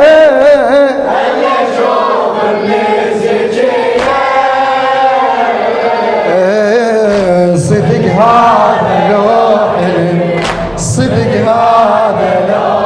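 Men's voices singing a Shia mourning lament (latmiyya) in chorus, with a wavering, ornamented melody held on long notes.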